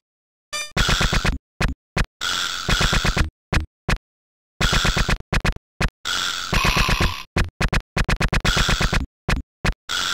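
Amiga demo soundtrack of sampled electronic music. It plays as a choppy, stop-start beat of short sampled hits and longer stabs, broken by brief gaps of silence.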